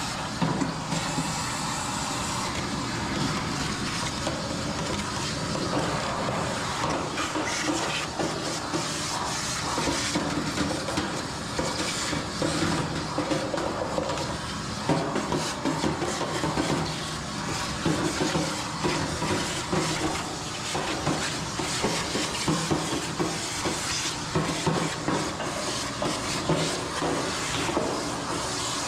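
A machine running steadily, most likely an older clothes dryer: a continuous rumble and hiss with constant rattling and scattered knocks.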